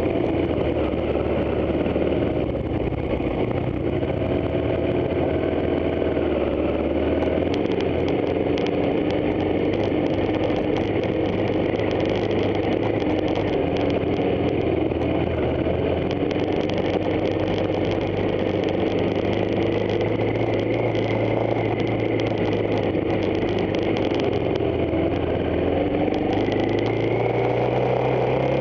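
Off-road motorcycle engine running continuously while riding a rough dirt track, its revs rising and falling, with frequent rattling clicks from the bike over the bumps.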